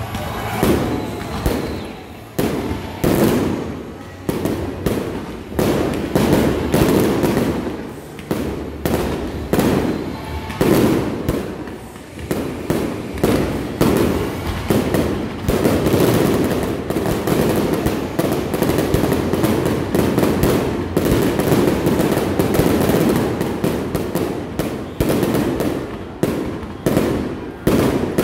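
Aerial fireworks shells bursting one after another in a steady barrage of sharp bangs, often a second or less apart, which run together into an almost unbroken stretch in the middle.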